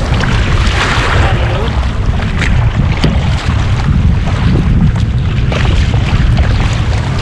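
Wind rumbling on the microphone over water splashing and sloshing around a kayak's hull as it is paddled through choppy sea, the paddle blades dipping in with each stroke.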